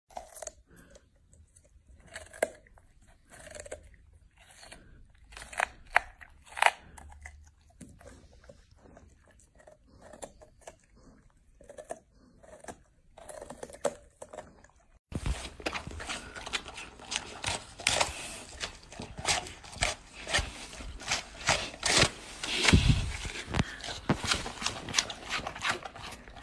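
A golden retriever crunching and chewing a raw carrot, in separate sharp bites. About fifteen seconds in, the sound changes abruptly to denser, faster crunching over a steady hiss as a dog chews an apple.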